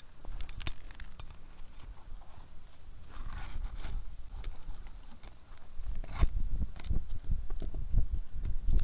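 Flat bar scraping and prying under asphalt roof shingles to get at the nails, with crunchy scrapes and sharp clicks as the shingles are lifted and the tool knocks against them; one longer scrape about three seconds in.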